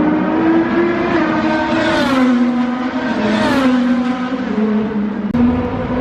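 Race cars at high revs on the circuit, two passing in quick succession about two and three and a half seconds in, each engine note rising then falling as it goes by. The sound changes abruptly near the end.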